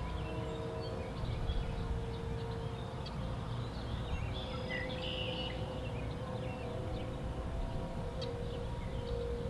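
Outdoor warning siren sounding a steady tone, fairly faint, fading for a moment and then growing stronger again about halfway through, with birds chirping.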